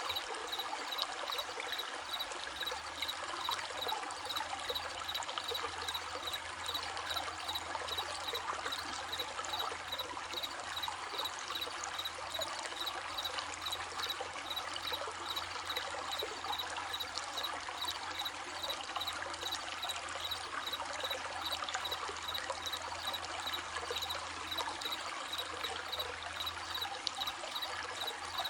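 A stream running and trickling steadily, with crickets chirping in a regular, even rhythm at a high pitch over the water.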